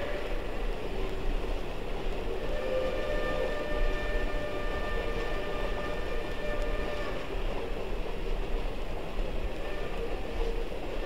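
Steam locomotive whistle blowing long blasts, several tones sounding together: one just at the start, a long one from about two seconds to seven, and another starting near the end, over the steady noise of the moving train.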